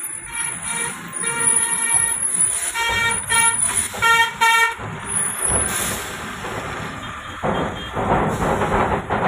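A vehicle horn sounding in a run of short honks over the first half, over the running noise of a truck cab on the road. Later the road and engine noise in the cab grows louder.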